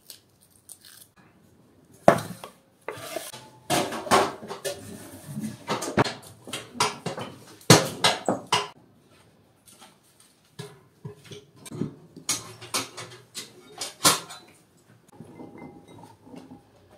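Irregular clattering and knocking of metal and wood: kitchen utensils, a wood-burning stove and firewood being handled. A few sharp, loud knocks stand out: one about two seconds in, one near the middle and one near the end.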